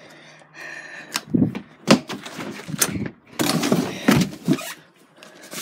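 A storm door being handled: latch rattles and several sharp thuds of the door, a little over a second apart, with hurried movement.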